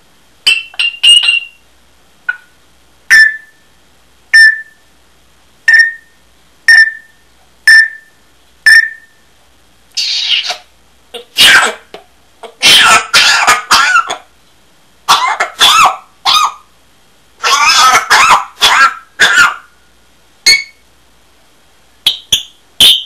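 African grey parrot mimicking a hacking smoker's cough. Short sharp clicks come about once a second at first, then long runs of harsh, rasping coughs in the second half, with a few whistled chirps near the end.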